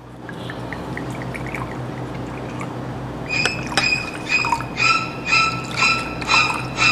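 Soju poured from a green glass bottle into glasses, one after another. A few seconds in, the pour turns into a run of short glugs from the bottle neck, roughly two a second.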